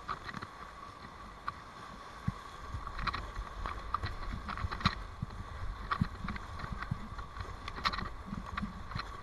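Rushing whitewater of a large river rapid around a kayak, with irregular splashes and knocks of paddle strokes and waves hitting the boat, more frequent from about three seconds in.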